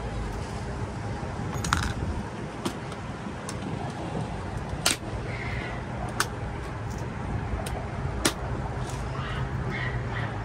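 A steady low rumble with about five sharp clicks and clinks spread through it, typical of gear and fittings being handled on a small boat.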